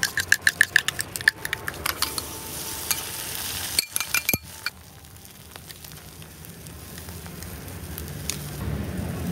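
Fork whisking eggs in a metal cup: a quick run of ringing clinks, followed by beaten egg sizzling on a hot flat-top griddle.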